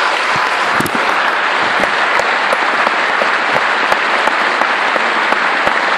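Concert audience applauding steadily, a dense patter of many hands clapping.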